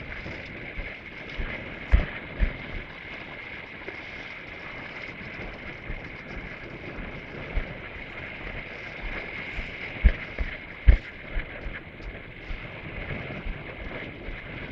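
Wind buffeting the microphone over a steady hiss of surf washing against the rocks, with a few sudden low thumps from gusts.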